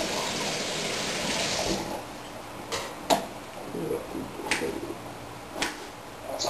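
Water running from a tap, stopping about two seconds in, followed by a few sharp clicks and knocks.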